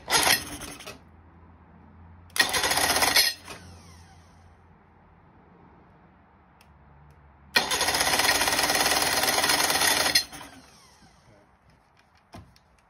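An Evinrude outboard's new electric starter cranks the engine in three bursts, its pinion spinning the flywheel's ring gear. There is a short burst at the start, a second of about a second soon after, and a longer one of two to three seconds in the middle, with a faint click near the end. The engine turns over without catching.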